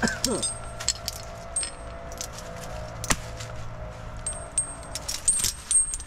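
Light metallic clinks and jangles, scattered irregularly, over a steady engine drone.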